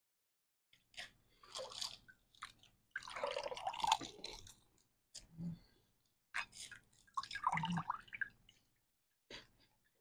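Golgappas (pani puri) being eaten fast: the water-filled crisp shells are crunched and chewed wetly, with drips of the spiced water. The sounds come in irregular bursts, the longest about three seconds in and again near seven seconds in.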